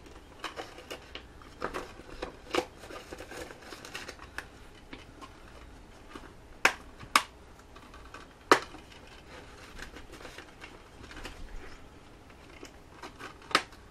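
Plastic disc cases being handled: light rustling and small clicks, with two sharp clicks about seven seconds in, another about a second later, and one more near the end.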